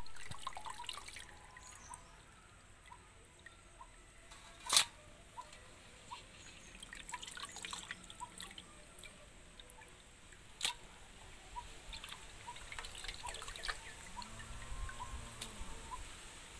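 Water dripping and trickling as raw chicken pieces are washed by hand in a pot of water, with small drips throughout. Two sharp knocks stand out, about five and eleven seconds in.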